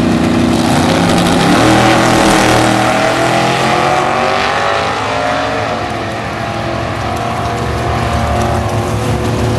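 Drag-racing cars launching off the start line, their engines revving hard and rising in pitch through two gear changes before fading as they run away down the strip. A steadier engine note follows near the end.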